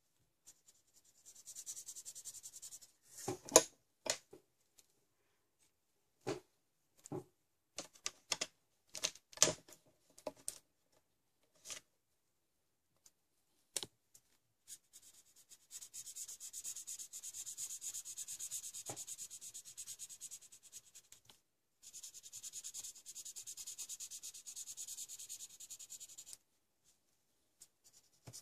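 Felt-tip marker scratching on paper in fast back-and-forth colouring strokes, in runs of several seconds. A scatter of sharp clicks and taps falls in the first half, the loudest about three and a half seconds in.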